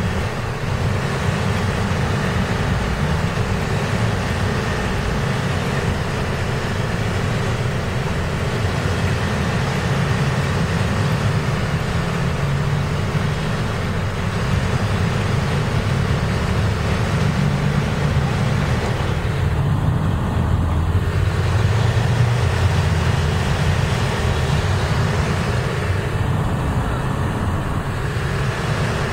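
Steady road and traffic noise of a ride through city streets, a continuous low rumble of engines and tyres with hiss on top.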